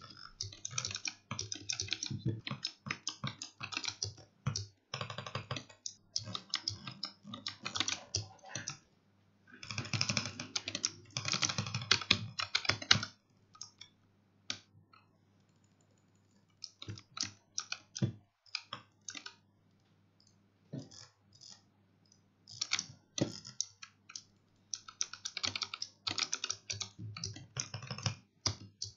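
Razer Huntsman Mini keyboard keys pressed in fast flurries of clicking keystrokes, with two short lulls of only scattered taps in the middle.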